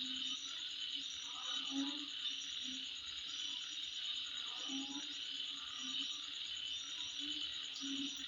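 Night insect chorus: a steady high-pitched trill with short chirps repeating in small groups above it. A lower call comes in irregularly, every second or so.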